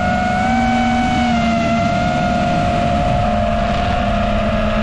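Radio-control model plane's motor and propeller whining steadily in flight, its pitch drifting slightly up and down, with a low wind rumble on the onboard microphone.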